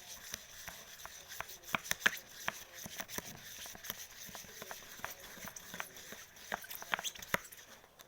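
Freshly mixed homemade slime being squished and worked, giving irregular wet clicks and small pops, several a second; the slime is still sticky, not yet fully set.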